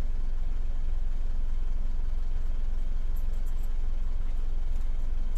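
Mitsubishi Triton's turbodiesel engine idling steadily, a low even rumble heard from inside the cab, running at about 650 rpm.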